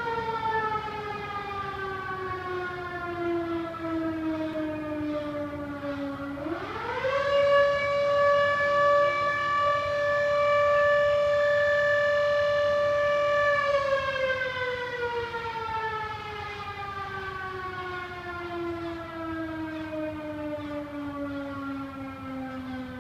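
Civil defense siren sounding the 9:05 signal for the minute of silence on the anniversary of Atatürk's death. Its wail falls slowly, sweeps up sharply about six seconds in to a steady held tone for about six seconds, then slowly falls again.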